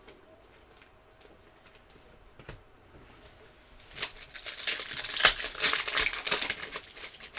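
Foil wrapper of a trading-card pack being torn open and crinkled: a dense, crackling rustle that starts about four seconds in and lasts about three seconds.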